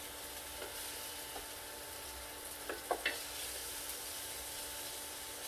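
Garlic butter chicken bites sizzling as they fry in a skillet, a steady hiss, with a couple of light knocks about three seconds in.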